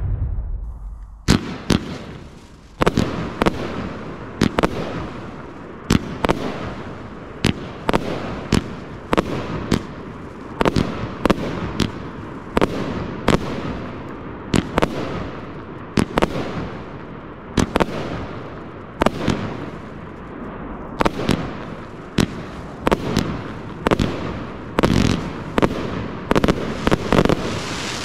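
Pyroworx Crucible 25-shot 30 mm firework barrage cake firing. Shots launch and burst in quick succession, about one or two sharp reports a second, each trailing off in a short hiss, with the run starting about a second and a half in.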